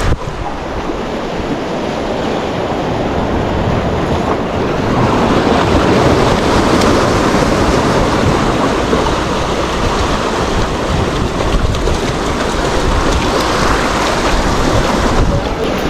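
Ocean surf with wind buffeting the microphone: a steady rush of noise that grows slightly louder about five seconds in.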